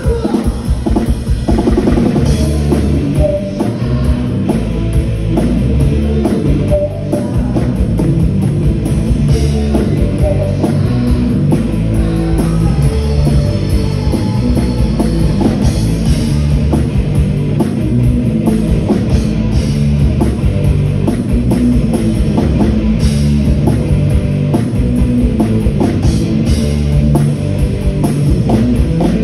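Live rock band playing an 80s hair metal cover: distorted electric guitar over a driving drum kit, loud and unbroken.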